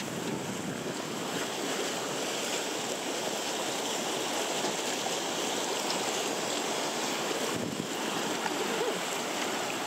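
River rapids rushing steadily, whitewater churning close around the boat, with one brief dip near the end.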